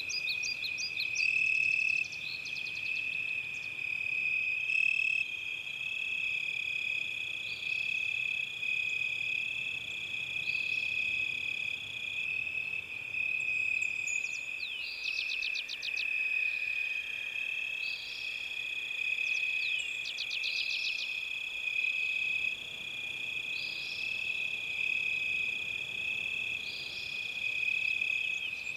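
Forest ambience: a continuous high-pitched chorus of calling animals, with small birds singing short chirping and trilled phrases over it every couple of seconds.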